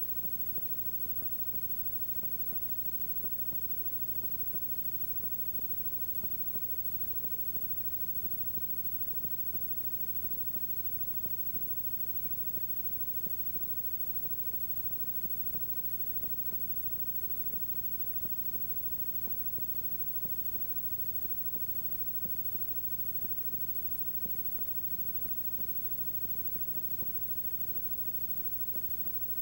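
Steady hiss and electrical hum with faint crackle and no other sound: noise on the audio track of an old videotape copy.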